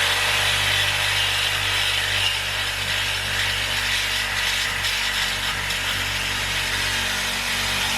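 A power saw cutting steadily through the car's exhaust pipe to cut out the resonator.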